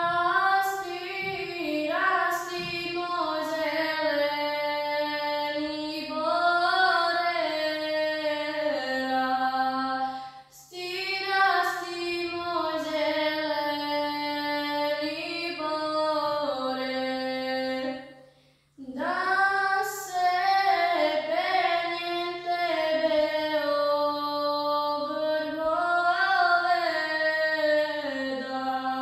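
A young girl singing a Serbian folk song solo and unaccompanied, in long held, ornamented phrases, with short breaks for breath about ten and eighteen seconds in.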